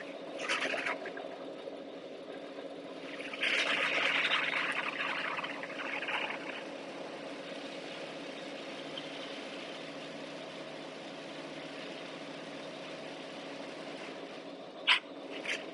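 Steady hum of a CNC turret punch press running. A louder hissing burst comes from about three and a half to six and a half seconds in, and two sharp clicks come near the end.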